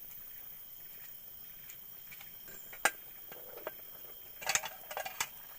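A single sharp click about three seconds in, then a short run of light knocks and rattles near the end, over a steady faint hiss.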